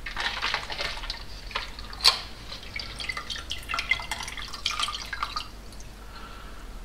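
Ammonia cleaning solution dripping and splashing as a Mercedes M113 V8 piston and its parts are lifted out of a plastic cup, with one sharp clink about two seconds in. The dripping fades after about five and a half seconds.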